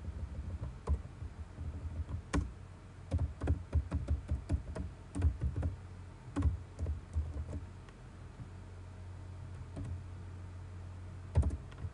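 Computer keyboard typing: a quick run of key clicks for about seven seconds, then a pause and a short burst of a few more keystrokes near the end.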